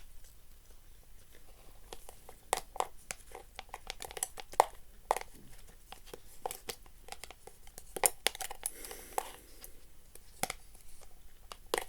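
Irregular small clicks and taps with some crinkling, as of objects being handled close to the microphone.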